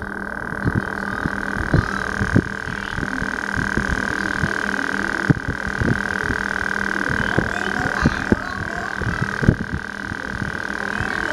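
Irregular soft low thumps, like a small camera being handled, over a steady high-pitched hum.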